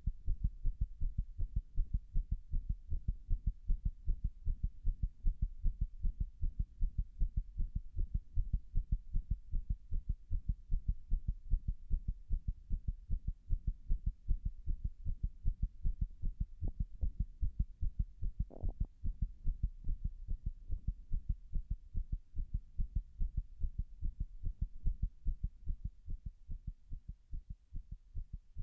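Human heartbeat heard up close through a chest microphone: a continuous run of low, dull beats, presented as an arrhythmia brought on by standing pressed against a wall. A brief scuff is heard about two-thirds of the way through.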